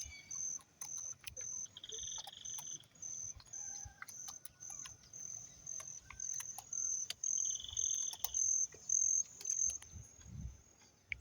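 Scattered sharp clicks and pops from the water-hyacinth mat, which the listener thinks is a lot of fish. Under them runs a steady high pulsed insect chirping, with two short high trills.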